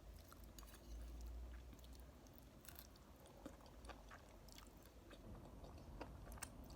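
Faint close-up chewing of a mouthful of noodles, with scattered small wet mouth clicks.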